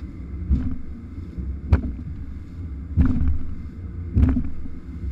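Flat-bottomed boat's hull slamming into waves while underway, four hard slaps about a second and a bit apart, each with a splash of spray, over a steady low rumble of the motor and wind.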